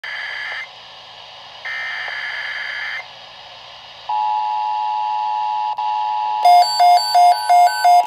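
Midland weather alert radio sounding an Emergency Alert System tornado watch: two bursts of digital SAME header data, each a second or so long, then after a pause a steady attention tone. About two and a half seconds into the attention tone, the radio's own alarm beeps join it at about three a second.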